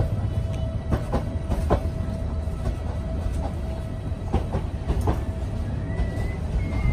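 Passenger train running over rough track, heard from inside the carriage by an open window: a steady low rumble with irregular clicks and knocks from the wheels over the rail joints, and a faint steady whine.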